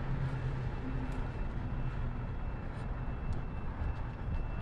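Steady low engine rumble under outdoor street noise.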